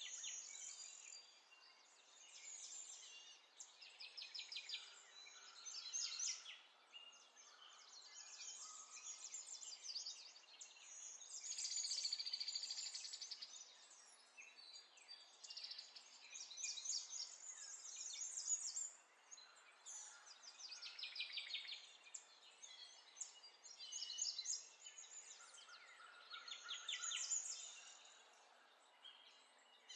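Faint birdsong: small birds chirping and trilling in quick high-pitched runs, one after another with short pauses.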